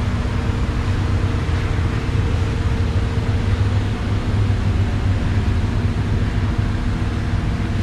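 Steady, continuous low mechanical hum with a few faint steady tones over it, unchanging throughout.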